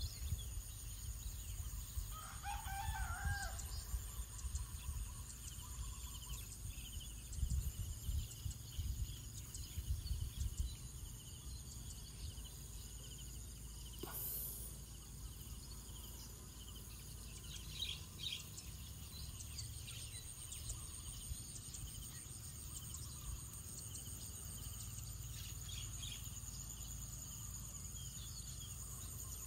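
A rooster crows once about two seconds in, over a steady high-pitched drone of insects. A few short bird chirps follow later, and there is low rumbling during the first ten seconds.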